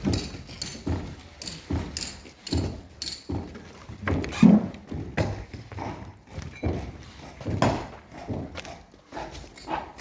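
Repeated hand-tool strikes, about one a second, each a sharp knock, with a heavier thud about four and a half seconds in.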